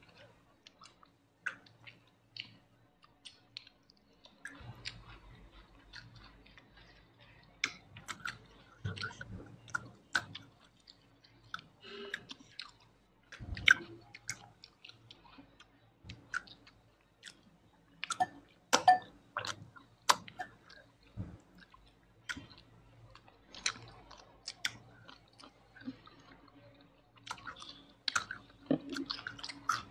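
Close-miked chewing and biting of food, with wet mouth sounds and short sharp clicks scattered irregularly throughout.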